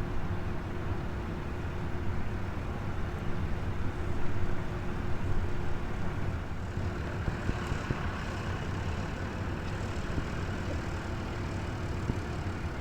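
Steady low engine rumble with a faint steady hum that fades about halfway through.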